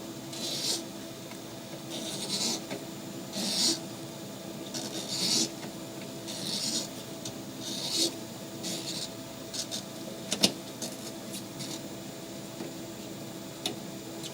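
Rasping, scraping strokes, about one every second and a half, over a steady low hum, followed by a few sharp clicks.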